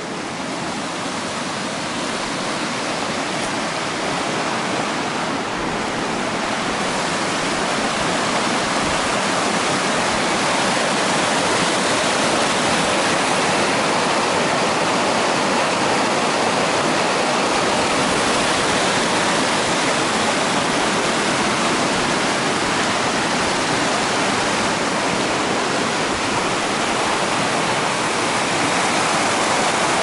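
Rushing water: a dense, even noise that grows louder over the first several seconds, then holds steady.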